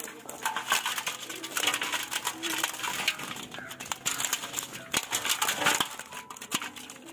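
Live pearl spot (karimeen) and other fish flapping and thrashing against a perforated metal pail: a dense, irregular run of rattling, crackling clicks.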